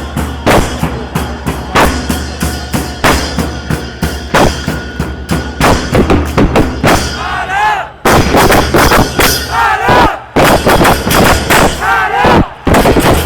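Football supporters shouting and chanting over loud, heavy drumming, with sharp hits throughout. About eight seconds in the hits come faster and several loud shouts rise and fall in pitch.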